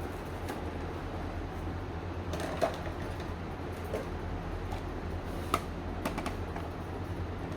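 Scattered light clicks and taps, two of them sharper and louder (about two and a half seconds in and again near five and a half seconds), over a steady low hum.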